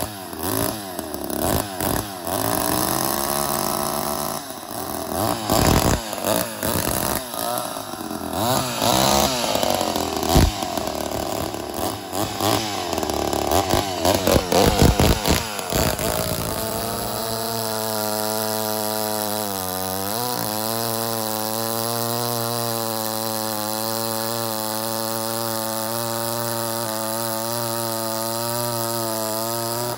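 Ported Poulan 245a two-stroke chainsaw running, revving up and down through the first half, then settling to a steady idle about halfway through, with one brief dip in speed a few seconds later. It is fitted with a muffler off a Lombard saw and is being test-run for reliability.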